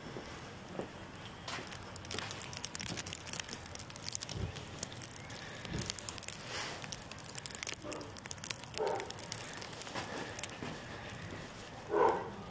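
A dog barks twice, a few seconds apart, the second bark the loudest. Between them runs a dense, light crackle of clicks.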